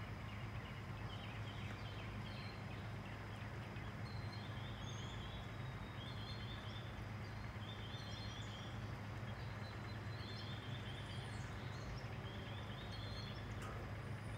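Outdoor ambience: a steady low hum, with short high trilled chirps repeating every second or two.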